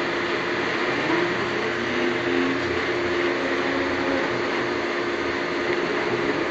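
Beam moving-head stage lights running: a steady whir of their cooling fans with a constant low hum, the pitch wavering slightly about two seconds in.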